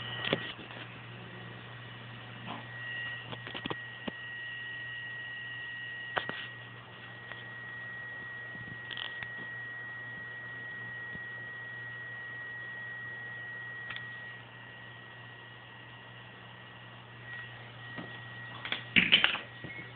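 Small electric cooling fan running with a steady low hum and a thin high whine, with a few faint clicks. Loud knocks from the camera being handled about nineteen seconds in.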